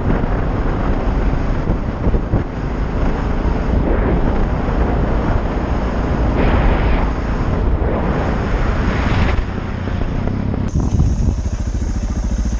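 Suzuki DR650SE's single-cylinder engine running through an FMF exhaust with a Powerbomb header while riding at road speed, with wind buffeting the microphone.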